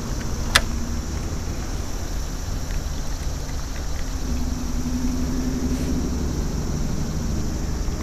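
Steady low rumble of a distant engine, its faint hum swelling slightly in the middle, with a single sharp click about half a second in.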